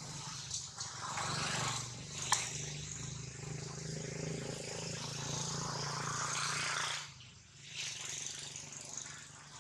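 A motor vehicle's engine running steadily under a broad hiss, dropping away sharply about seven seconds in, with one sharp click about two seconds in.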